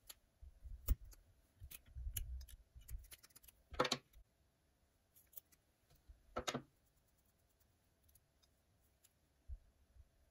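Light clicks and handling noises of fly-tying tools and materials at a vise, with two short, louder rasping sounds about four and six and a half seconds in.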